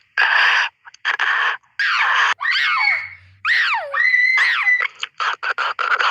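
Animal calls: a series of harsh screeches separated by short gaps, with whistled calls sweeping down in pitch and a held whistle near the middle, and a quick run of short calls near the end.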